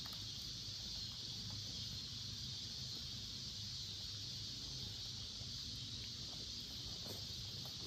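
Steady high-pitched chorus of insects in a summer field, over a low steady rumble, with a few faint clicks near the end.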